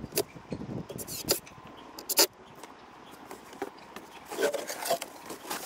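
Irregular knocks, clicks and scrapes of wooden boards being handled, with one sharp knock a little over two seconds in and a cluster of knocks near the end.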